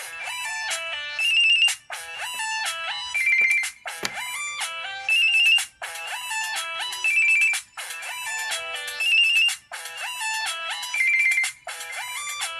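Samsung Conquer 4G (SPH-D600) ringtone playing: a short electronic melody of quick, bright stepped notes, looping about every two seconds.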